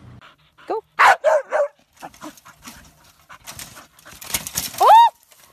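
Dogs barking and yipping: a short rising yip, then a quick run of three or four barks about a second in, and a single loud rising yelp near the end.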